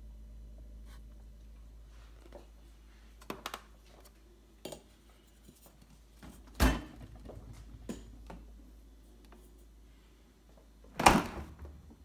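LG French door refrigerator doors being shut: a few light clicks, then two loud thuds about four and a half seconds apart, the second the loudest. The doors slam hard, which the owner puts down to doors that do not close properly. A low hum fades out in the first couple of seconds.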